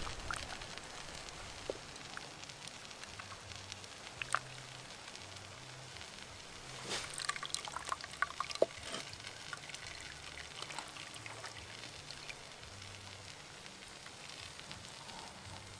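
Water splashing and dripping in a clay pot as raw pig ears are washed by hand, with water pouring off a lifted ear back into the pot. Scattered small splashes and drips, busiest about seven to nine seconds in.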